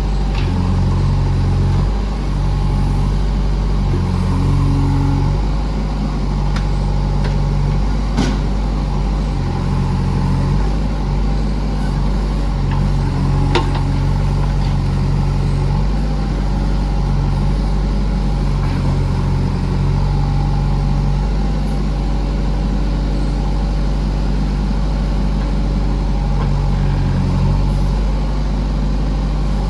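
JCB backhoe loader's diesel engine working, its low drone stepping up and down every second or two as the load changes, with a couple of sharp metallic knocks.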